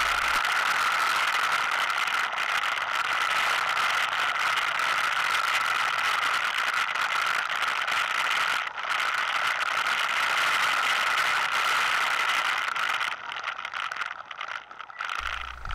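ATV (quad) riding along a rough dirt trail: steady engine and vehicle noise with rattling, which drops and turns patchy near the end as the quad pulls up and stops.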